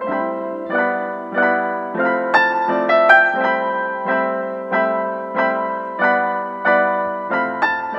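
Background piano music: chords struck at a steady, unhurried pace, about three every two seconds, each one dying away before the next.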